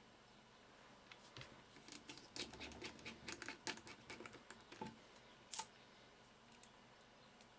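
Faint clicking and scratching of a small Torx screwdriver and tiny screws being driven into a phone's frame, with a quick run of small clicks through the middle and one sharper click a little past halfway.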